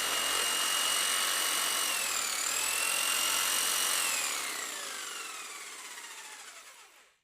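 Electric sander running at full speed with a steady high whine, its pitch dipping briefly a little after two seconds in. About four seconds in it is switched off and winds down, the whine falling in pitch and fading until it stops just before the end.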